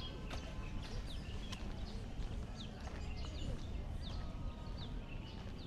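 Small birds chirping, many short falling calls repeated throughout, over a steady low background rumble with a few sharp clicks.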